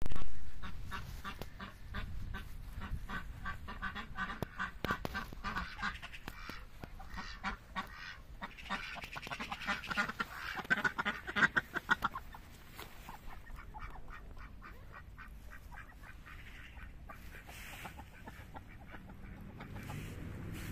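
Rouen ducks quacking in quick repeated runs, loudest about ten to twelve seconds in, then only a few scattered quacks. A brief knock at the very start.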